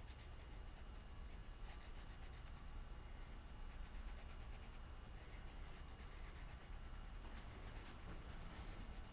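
A crayon scribbling back and forth on paper, faint and steady, as an area is coloured in.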